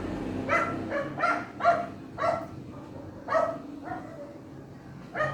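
A dog barking: a string of short, separate barks that grow fainter after about four seconds, then one more bark near the end.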